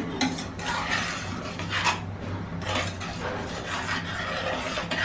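Steel spoon stirring a thick coconut-paste curry in a stainless steel pressure cooker pan, scraping along the metal and clinking against the sides several times.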